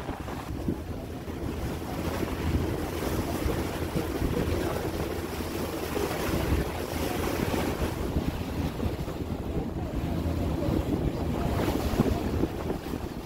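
Passenger ferry under way: a steady rush of water and engine noise, with wind buffeting the microphone.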